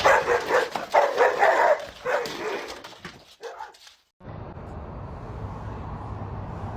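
A dog barking in a quick run of short, high yips for about three seconds. After a sudden break, a steady low hum.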